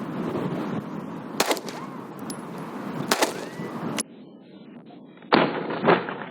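Four pistol shots: the first two about two seconds apart, the last two about half a second apart near the end.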